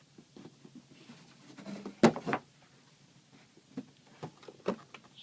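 Handling noises: a sharp knock about two seconds in, then a few lighter taps and clicks.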